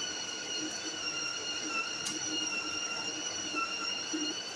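The built-in burr grinder of a De'Longhi La Specialista Maestro espresso machine grinding coffee beans for a double shot: a steady motor whine with several high tones over a grinding hiss.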